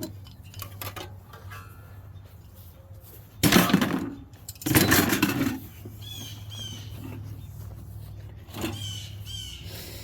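Hand tools being handled and shifted in a bin: two loud clattering bursts around the middle. Birds chirp in the background in the second half.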